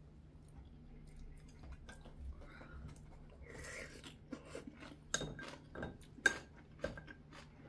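Scattered soft clicks and taps of a spoon and chopsticks against a ceramic bowl while eating, over a faint steady low hum.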